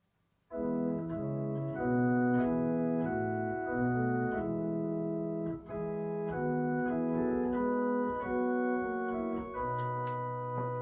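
Organ playing the hymn's introduction in slow, held chords that change every second or so, with a short break between phrases about halfway through.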